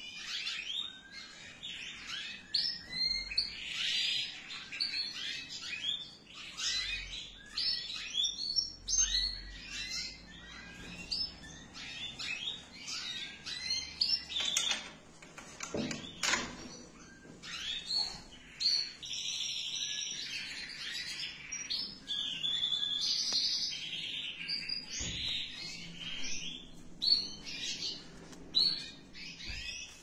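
A room full of canaries and goldfinches chirping and singing all at once, short calls overlapping with longer warbling trills.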